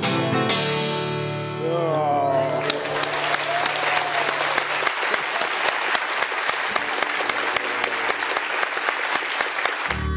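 The last chord of a viola caipira (ten-string Brazilian folk guitar) with acoustic guitar rings out and fades. About two seconds in, a studio audience breaks into steady applause, with a few voices calling out. Music starts again near the end.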